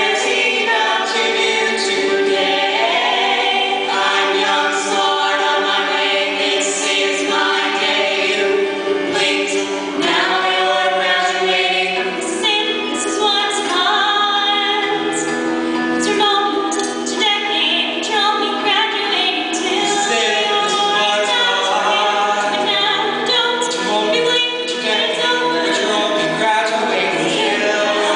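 A vocal quartet of three female voices and one male voice singing a musical-theatre song in harmony, amplified through microphones.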